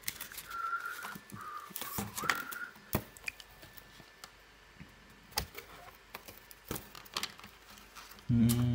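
Scattered light clicks and taps of card and plastic kit pieces being handled on a wooden table. There are two short squeaky tones, about half a second in and about two seconds in.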